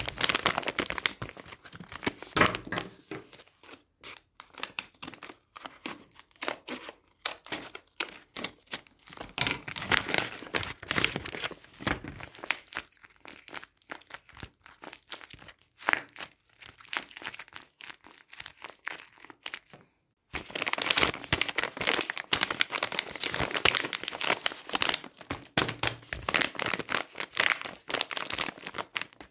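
Blind-bag packaging crinkling and tearing as it is handled and opened by hand, an irregular crackle of rustles and rips with a short pause about two-thirds of the way through.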